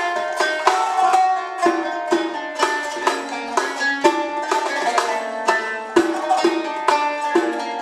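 A qanun plucked in a quick melody of many short notes. A riq (frame drum with jingles) beats a steady rhythm with it.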